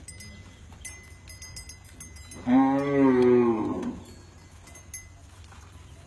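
Zebu bull mooing once: one loud, low call of about a second and a half, starting about two and a half seconds in, its pitch arching slightly up and then falling away.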